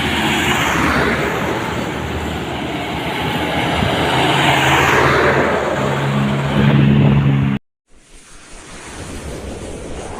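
A large truck passing close by with loud engine and road noise. About six seconds in, a horn sounds a steady low chord, and then the sound cuts off abruptly.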